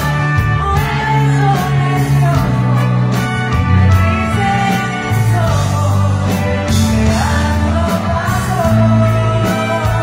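Live band music with a singer's voice carrying the melody over held bass notes, loud throughout.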